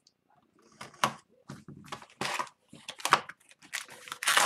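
A cardboard trading-card box being cut open and its lid pulled back: a string of short scrapes, rustles and taps of cardboard.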